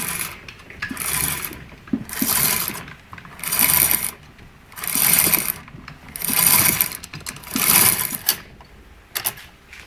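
Clutch drum and drive-chain sprocket of a homemade 31cc-trimmer-engine RC car being spun over and over, about seven whirring rushes roughly every 1.3 seconds, with the chain and the home-made band brake around the drum rubbing and rattling.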